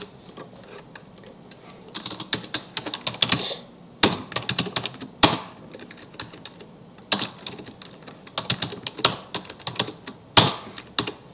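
Typing on a computer keyboard in short bursts of quick key clicks, with a few louder single clicks between them.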